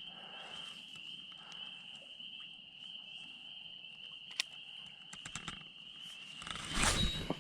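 Steady high-pitched chorus of insects in the evening outdoors, with a few faint clicks and a short louder rustle near the end.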